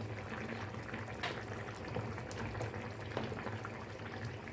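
A pot of chicken in tomato sauce simmering, small bubbles popping and crackling steadily over a low hum, with a few sharper clicks.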